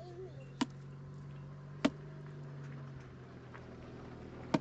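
Three sharp knocks, irregularly spaced a second or more apart, over a steady low hum.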